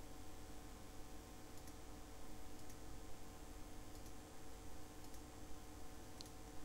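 A few faint, scattered computer mouse clicks, about a second apart, over a faint steady hum.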